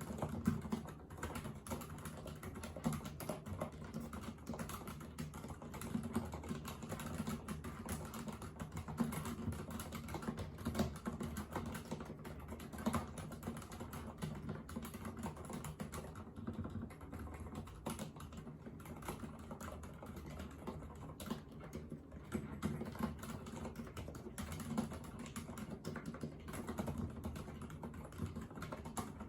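Continuous typing on a Thinkway Toketi mechanical keyboard with silent red linear switches: a dense, steady run of low-pitched keystrokes.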